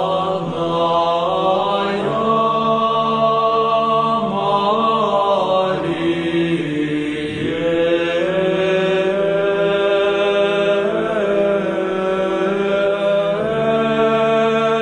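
Slow Orthodox liturgical chant: voices holding long notes that glide slowly from pitch to pitch over a steady sustained drone note.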